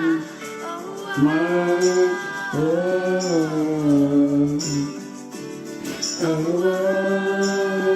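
A small acoustic band plays a pop song, with long held sung notes that slide between pitches over guitar, bass and piano. A rattle-like shaker adds short bursts every second or so.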